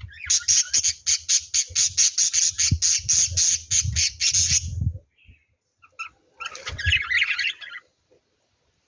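Lovebirds calling in a fast run of sharp, high-pitched chirps, about five a second, that cuts off suddenly after nearly five seconds. After a short silence comes a second brief burst of chatter.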